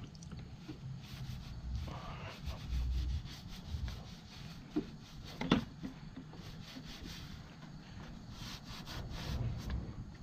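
A garden hose being dragged and handled: irregular rubbing and scraping with a couple of light knocks partway through, over a low rumble.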